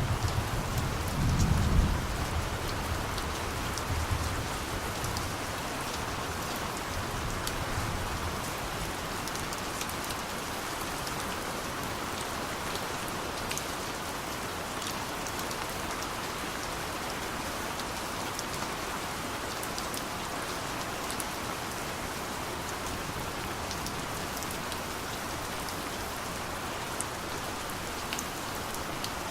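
Steady rain falling, with scattered drops ticking. Distant thunder rumbles low and fades away over the first several seconds.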